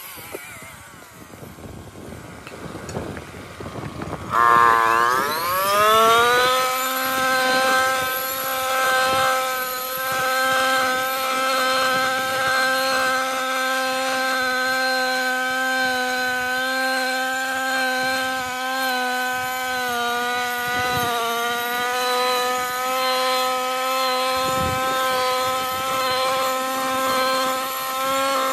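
Husqvarna 128R brushcutter's two-stroke engine, low and rough for the first few seconds, then revving up in a rising whine about four seconds in and running steadily at high speed with small dips in pitch.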